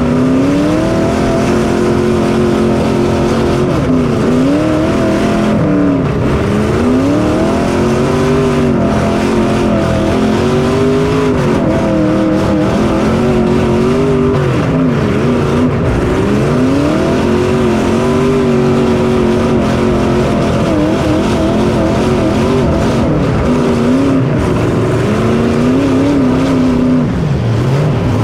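Race engine heard from on board, repeatedly revving up and falling off as the throttle is opened and lifted through the laps.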